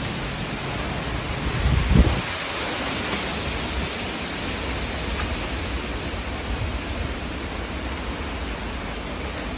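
Very strong storm winds rushing steadily, buffeting the microphone with a low rumble, and a stronger gust about two seconds in.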